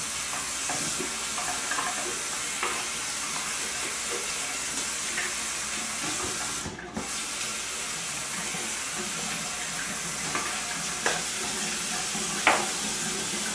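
Bathroom sink tap running steadily while a synthetic shaving brush is rinsed clean of Palmolive lather under the stream. The water sound dips briefly about halfway, and a couple of faint knocks come near the end.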